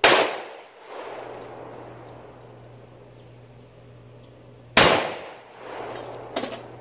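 Two 9mm pistol shots about five seconds apart, each followed by an echo rolling back from the range. A short metallic clang near the end, from the steel targets.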